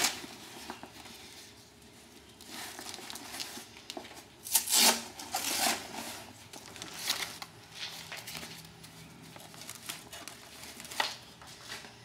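Intermittent rustling and short rips, a few seconds apart, from hook-and-loop (Velcro) straps and the paramotor frame being handled. The loudest rip comes about five seconds in.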